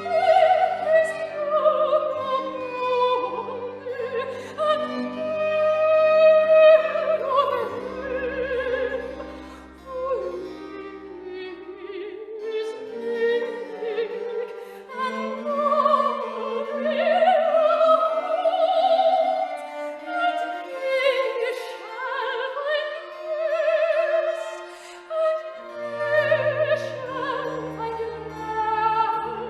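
Operatic singing voice with a wavering vibrato on long held notes, over orchestral accompaniment with bowed strings.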